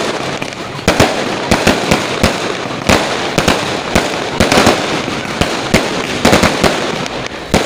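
Fireworks and firecrackers going off in an irregular string of sharp bangs, about two or three a second, over a continuous din.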